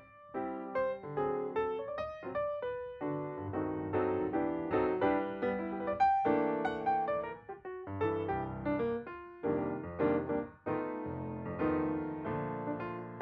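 Background piano music, a steady flow of struck notes and chords.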